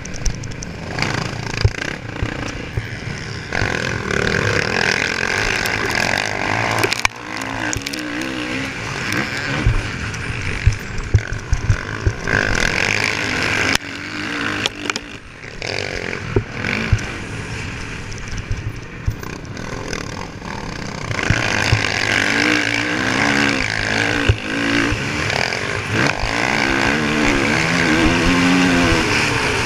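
Motocross dirt bike engine at race pace, its revs rising and falling repeatedly as it accelerates out of turns and shifts, heard onboard with wind rushing on the microphone. Sharp knocks and clatter from the bike over the rough track come through often.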